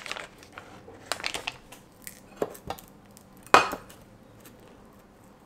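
Foil butter wrapper crinkling as a block of butter is unwrapped, then a few knocks of a spoon against a small bowl as the still-hard butter is pressed in, the loudest a sharp clink with a short ring about three and a half seconds in.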